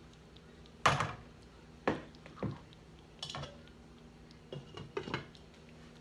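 Metal spoons clanking against the pots as they are lifted out, and a glass lid set down on the saucepan of rice: several sharp clanks, the loudest about a second in and a quick cluster near the end.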